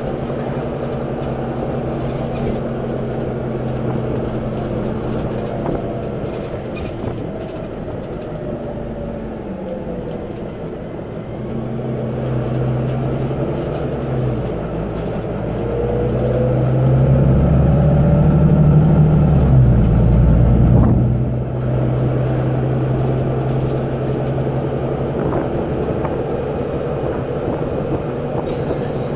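Volvo B9TL double-decker bus under way, heard from inside the passenger saloon: its six-cylinder diesel engine and driveline run steadily. The engine eases off around ten seconds in, then builds with a rising whine to its loudest between about sixteen and twenty-one seconds in, and drops off sharply.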